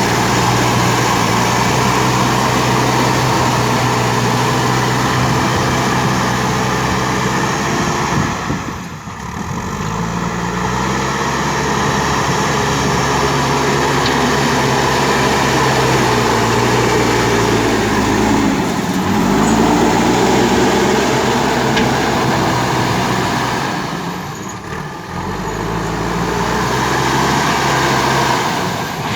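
JCB 3DX backhoe loader's diesel engine working hard. Its pitch drops and climbs back three times as the revs ease and pick up again.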